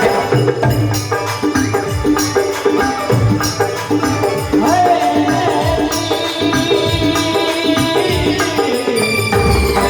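Folk music: a sustained melody with drum and jingle percussion keeping a steady beat.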